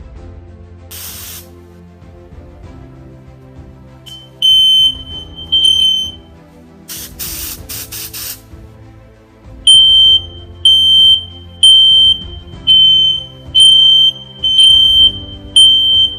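Smoke detector alarm sounding in loud, high-pitched beeps about once a second, after two single beeps and a few short hissing bursts.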